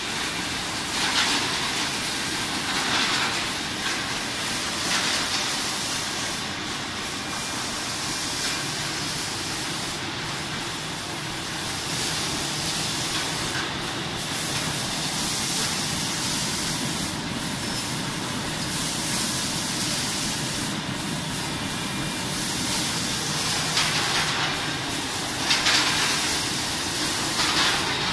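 Sidel SBO 10 rotary stretch blow moulding machine running: a steady machine noise under a constant hiss of compressed air, with louder hissing surges of air exhaust every few seconds, the loudest near the end.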